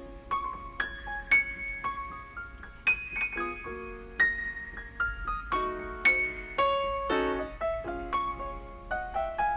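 Piano music: a melody of single struck notes, each ringing and fading, over held chords.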